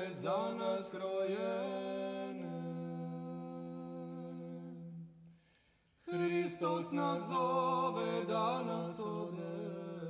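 Unaccompanied voices singing slow, long-held notes. A held chord fades out about five seconds in, and after a short silence the singing starts again.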